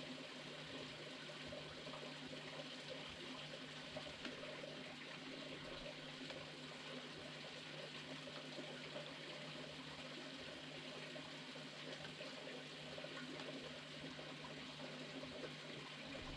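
Steady, even hiss of background noise with a faint steady low hum underneath; no distinct sound stands out.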